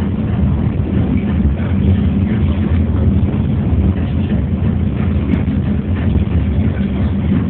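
Funicular car descending its track, heard from inside the car: a steady low rumble of the car in motion.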